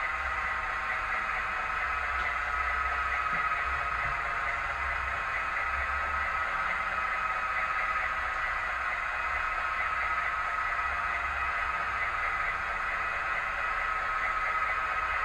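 Steady hiss with a faint high-pitched hum that does not change.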